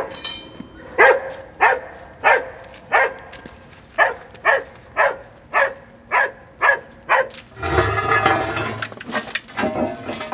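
Search-and-rescue dog barking in a steady run, about one and a half barks a second, at a find under collapsed concrete rubble: the dog's bark indication of a buried person. A little before the end the barks stop and a louder rough rumbling scrape takes over, then a couple more barks.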